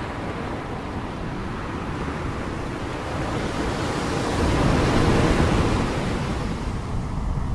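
Sea waves breaking on the shore. The surf builds to a loud crash about five seconds in, then washes back, with some wind on the microphone.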